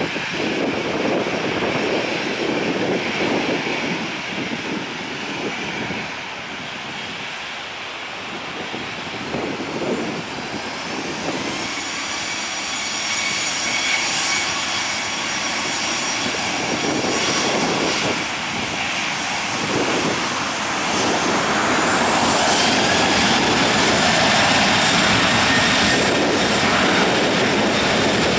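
Boeing 737-800's CFM56-7B turbofan engines running as the jet taxis, with a high turbine whine that rises in pitch from about ten seconds in. About twenty-two seconds in the engines get louder and higher as thrust is added.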